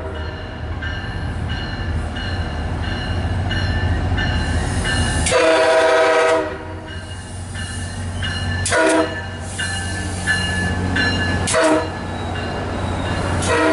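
MARC MP36 diesel locomotive arriving, its engine rumbling under a steadily ringing bell. Its horn sounds a long blast about five seconds in, then two short blasts, and another begins near the end.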